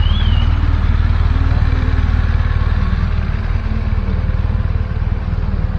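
BMW police motorcycle engine idling close by, a steady low rumble.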